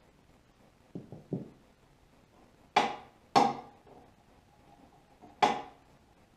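Metal parts of a table saw knocking together as the guard and anti-kickback pawl assembly is fitted: a few soft clicks, then three sharp knocks, each with a short metallic ring.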